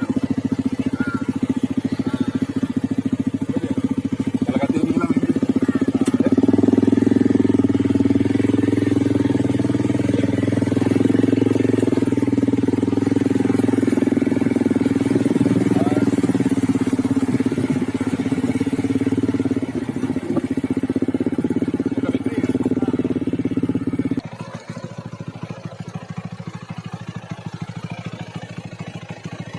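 A vehicle engine runs steadily and loudly close by. About 24 seconds in it cuts off abruptly, leaving quieter background noise.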